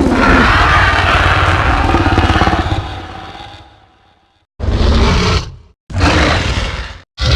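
Allosaurus roar sound effect: one long rough roar that fades away over about four seconds, followed by two short roars about a second long each, with a third starting near the end.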